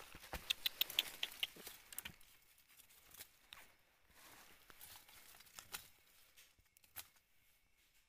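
Dry leaf litter and twigs rustling and crackling as they are stepped on and handled, with a quick run of small clicks in the first second and a half, then scattered single clicks.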